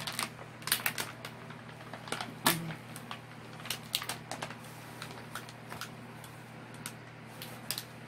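Plastic packaging crinkling and crackling in irregular bursts as a diamond-painting canvas is pulled from its mailer bag, with the sharpest crackle about two and a half seconds in.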